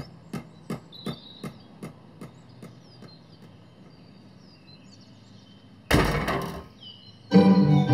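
A run of evenly spaced sharp clicks, about three a second, fading away over the first three seconds, with faint bird chirps behind. About six seconds in there is a short loud rushing noise, and near the end a flute melody begins.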